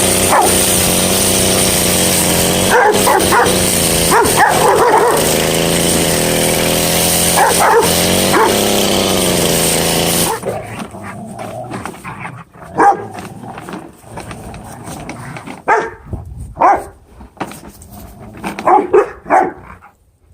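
Rottweiler barking in short bursts over a small petrol engine running steadily; the engine cuts off suddenly about halfway through and the barking goes on alone.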